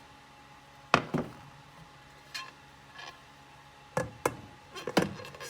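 Pan and plate knocking together as the steamed cake is flipped out of its pan: one sharp knock about a second in, a couple of light taps, then several quick knocks near the end.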